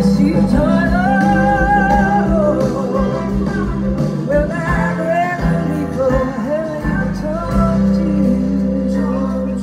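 Live band playing a slow song, a woman singing lead in long, wavering held notes over electric guitar and bass.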